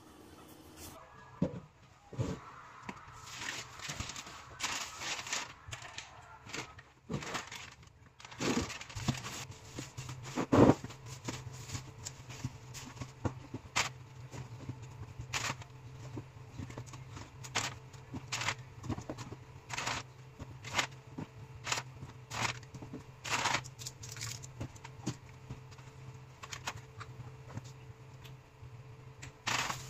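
Plastic packaging crinkling and rustling, with small knocks and clicks, as stock is unpacked from a cardboard box, in irregular bursts. A steady low hum runs underneath.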